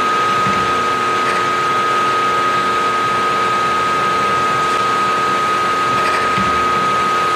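Milling machine spindle running with a steady high whine while a drill in its chuck is fed down into a metal part, cutting chips.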